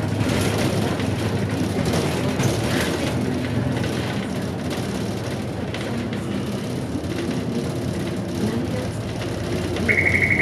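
City bus engine and road noise heard from inside the cabin while driving, the engine note rising and falling. Near the end a short pulsing electronic beep starts.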